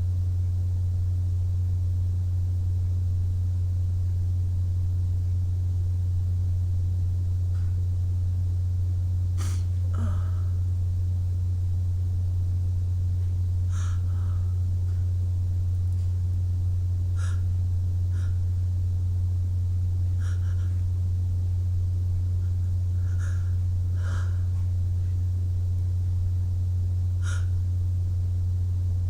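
A steady low hum throughout, with a person's short, faint breaths every few seconds from about nine seconds in; no sneeze stands out.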